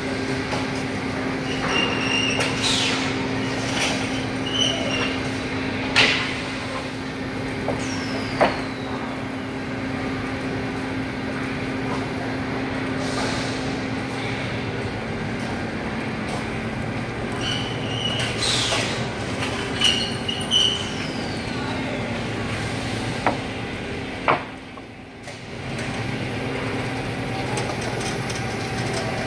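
Steady hum of running factory machinery in a wood-products plant, with scattered sharp knocks and clatters.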